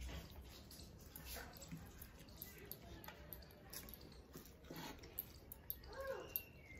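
Faint eating sounds of rice and curry mixed and eaten by hand: soft wet squishing of fingers in rice, smacking and chewing, with scattered small clicks.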